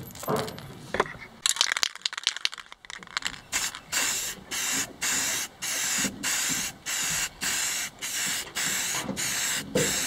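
A few sharp metal clicks as bolts and washers are handled. Then an aerosol spray-paint can sprays in short, even bursts of hiss, about two a second.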